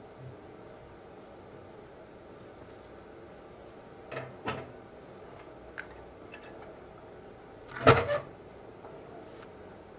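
Light metal clinks and knocks as a kerosene heater's sheet-metal chimney is handled, then one loud metal clank with a brief rattle about eight seconds in as the chimney is set down onto the burner base.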